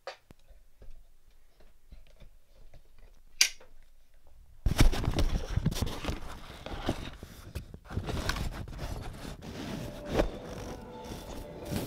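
Handling noise from the camera being moved about. First a few faint clicks and one sharper click about three and a half seconds in, then, from nearly five seconds in, loud rustling and scraping with many clicks, like cloth rubbing over the microphone.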